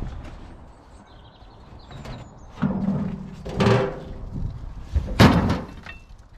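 A wheelbarrow heaved onto a trailer piled with rubbish: three knocks and clangs as it is lifted and dropped onto the load, the loudest a little after five seconds in, with a brief ring after the middle one.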